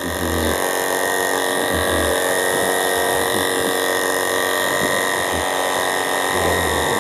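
Electric animal clippers starting up and running steadily with an even buzz, shaving a goat's hair.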